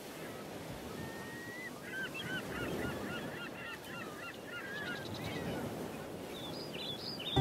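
Birds calling over a steady rushing noise: many short calls overlapping, densest in the middle, with higher chirps near the end.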